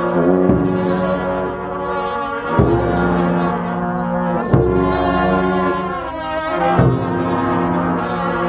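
Brass band of tuba, trumpets and hand cymbals playing a slow funeral march: held brass chords that change about every two seconds, each change marked by a cymbal crash.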